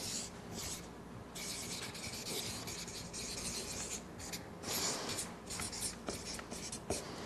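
Felt-tip marker writing on flip-chart paper, its tip rubbing across the paper in a run of strokes with short pauses between them.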